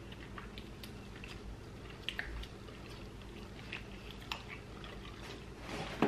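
A person chewing and biting food close to the microphone, with scattered small clicks, over a steady low hum.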